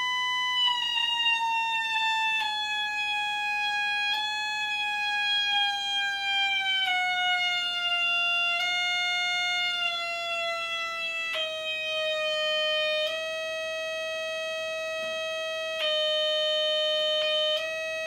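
Buzzy electronic oscillator tone from a 1970s Gakken MyKit MX-180 electronic kit. Its pitch slides gradually lower over about eleven seconds, then holds steady at a lower pitch, with small clicks where it shifts.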